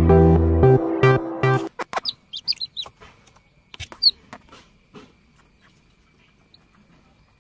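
Plucked-guitar music, cut off about a second and a half in, followed by a newly pipped chick peeping from inside its egg: a quick run of short, high, falling chirps, one more a little later, and a few sharp clicks.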